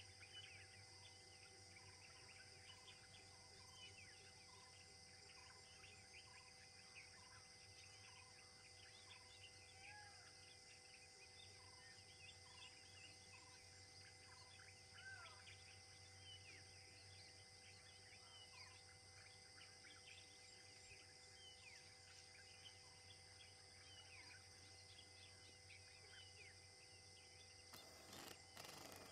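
Faint forest ambience: many scattered short bird chirps and whistles, one bird repeating a short note about twice a second through the first half, over a steady high insect drone. A brief burst of noise comes near the end.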